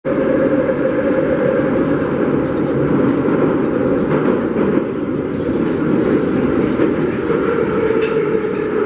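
Metro train running through a tunnel, heard from inside the passenger car: a steady low rumble and hum, with a few faint clicks of the wheels.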